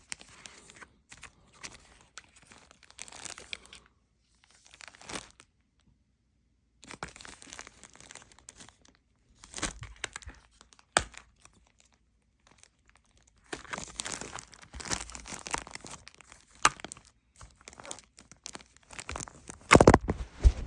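Packaging of a ratcheting wrench set being handled and opened: intermittent crinkling and rustling, with a few sharp clicks and the loudest handling near the end.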